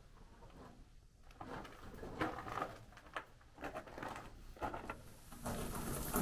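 Footsteps scuffing and tapping irregularly on the floor of an old coal-mine tunnel, echoing off the rock. The sounds are soft, and a steadier shuffling noise builds near the end.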